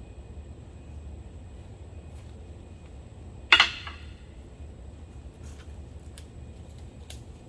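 A single sharp knock about halfway through, with a short ringing tail, over a steady low rumble; a few faint clicks follow near the end.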